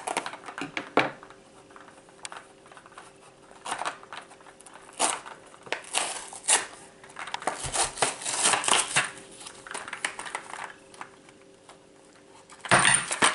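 Small scissors snipping and cutting through a stiff plastic blister pack with cardboard backing, in irregular clicks and crackles of the plastic. Near the end a louder crackle and thump as the pack is pulled open.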